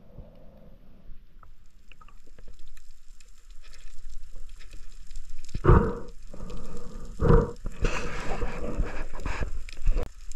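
Wind buffeting the microphone over a wash of water noise, at sea. It is quieter at first and builds after a few seconds, with loud gusting surges about halfway through, a second later, and near the end.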